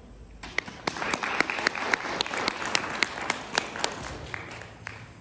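Audience applause welcoming the next performer: clapping starts about half a second in, with some sharp claps close by, and thins out and dies away near the end.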